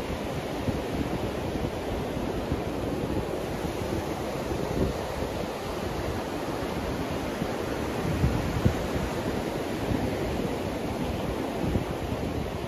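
Surf breaking and washing up the beach in a steady rush, with gusts of wind buffeting the microphone.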